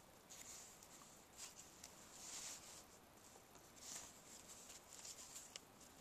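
Faint rustling and brushing of cardstock being pressed and shifted under fingers, in several short soft scrapes.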